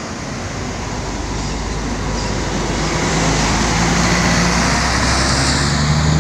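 Mercedes-Benz high-deck coach's diesel engine and tyres as the coach drives slowly past close by, growing steadily louder. A steady engine hum comes in about halfway and is strongest near the end, as the rear of the coach goes by.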